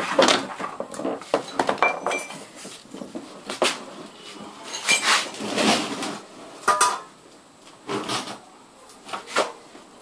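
Metal clanking and knocking of bicycle crank parts and hand tools during crankset removal: a quick run of knocks over the first couple of seconds, then single clanks about once a second, some ringing briefly like struck steel.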